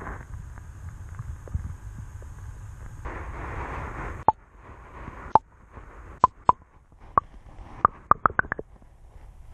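Muffled underwater sound picked up by a camera resting in shallow lake water: a low rumble of moving water, and a hiss about three seconds in that cuts off suddenly. A series of sharp clicks follows, with several in quick succession near the end.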